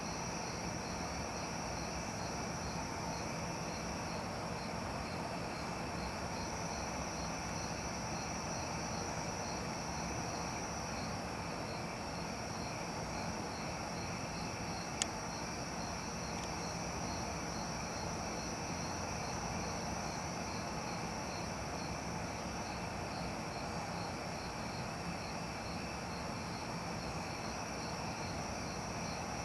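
A steady chorus of crickets and other insects: a continuous high trill with a quicker pulsing trill beneath it, over a low background rumble. There is one sharp click about halfway through.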